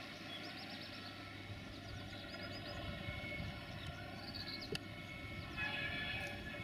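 Railway station ambience: a steady low rumble and hum, with a few short high chirps, a single sharp click about two-thirds of the way through, and a brief higher tone near the end.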